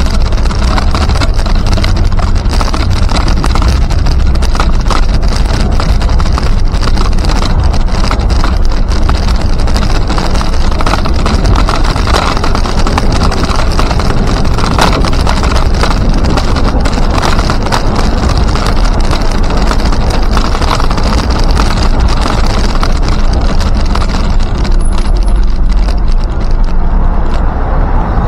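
Steady, loud rumbling noise of riding along a paved trail, with many small clicks and rattles.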